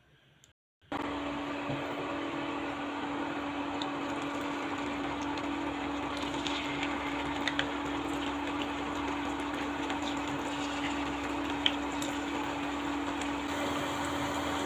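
Coated potato wedges sizzling as they deep-fry in hot oil in a pan, starting about a second in, with a steady low hum underneath and a few sharp pops and crackles.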